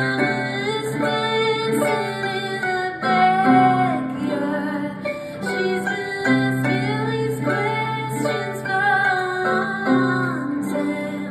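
Live band music with a woman singing over sustained instrumental notes.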